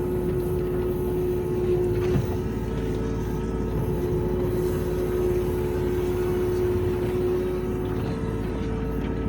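Kubota U27-4 mini excavator's diesel engine and hydraulics running steadily under digging load, heard from inside the cab, with a constant hum over a low rumble. The pitch of the hum shifts slightly near the end, with a single knock about two seconds in.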